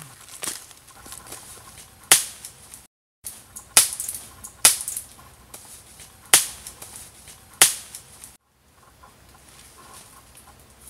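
About five sharp, loud cracks at irregular intervals of roughly a second, from a man striking with a wooden-handled tool in dense undergrowth.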